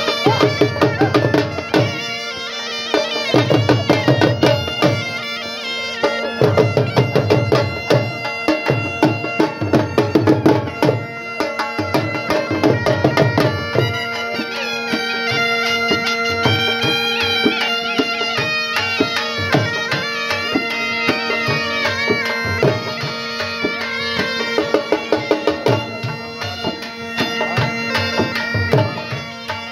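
Dhol drum and been (a bagpipe) playing Saraiki jhumar dance music: a steady drone under a reedy, ornamented melody. The dhol plays dense beats, heavy in stretches through the first half and lighter after about halfway.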